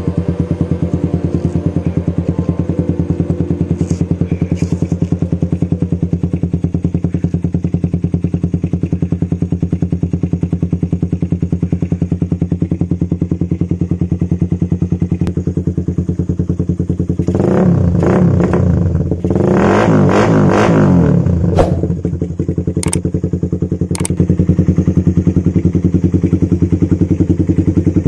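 Suzuki Raider 150's single-cylinder four-stroke engine running steadily at idle through an aftermarket OPBR exhaust. Past the middle it gets louder and noisier for a few seconds, then a few sharp knocks follow.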